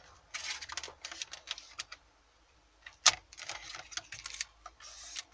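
Plastic trim surround being fitted around a car stereo in the dash: a run of light plastic clicks and rattles, with one sharp click about three seconds in as it is pressed into place.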